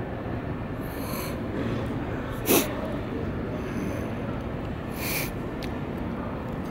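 Steady low rumble of night-time city ambience, broken by one short, sharp sound about two and a half seconds in, the loudest moment, and a brief hiss about five seconds in.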